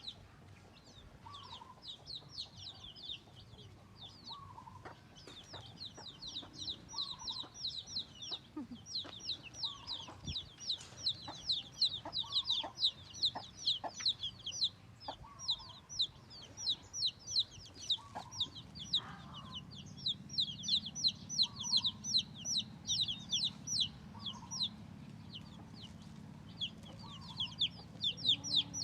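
Chickens: a continuous stream of rapid high peeping calls with a lower cluck about every two seconds, typical of chicks with a hen. A faint low hum joins about two-thirds of the way through.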